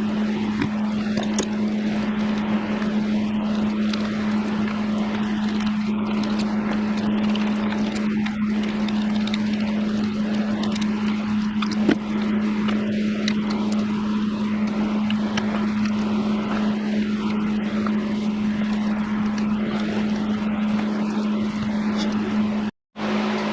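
Steady machine drone with a constant low hum, overlaid by scattered light clicks; it drops out for a moment near the end.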